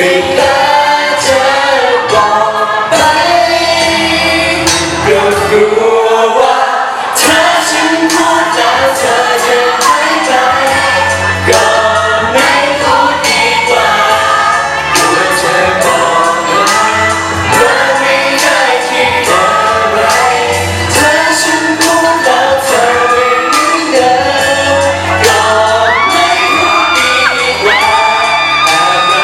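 Thai pop song played loud, a sung vocal over a full backing track with a steady beat.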